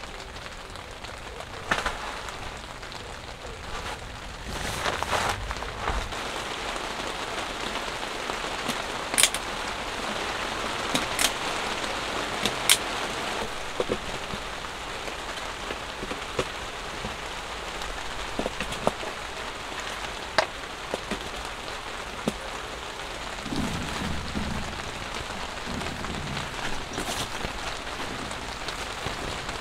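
Steady rain pattering on tent fabric, with occasional sharp clicks and knocks as the metal legs of a folding camp cot are fitted into place.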